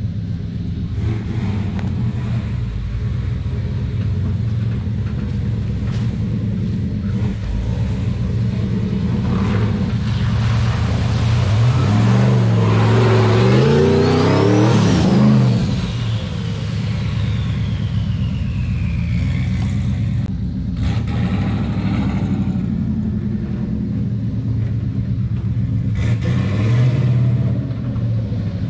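Turbocharged 5.9L Magnum V8 in a 1951 Dodge one-ton truck running under load off-road. About halfway through it revs up, and a turbo whistle rises and then slowly falls away over several seconds as the revs drop. Near the end there is another shorter rev.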